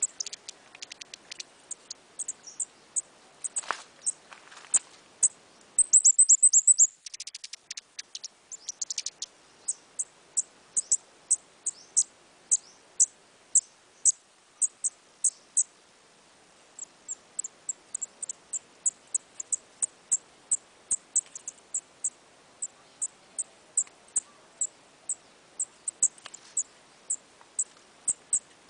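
A small bird giving a short, very high chirp over and over, about two a second, with a loud, fast run of chirps around six to seven seconds in.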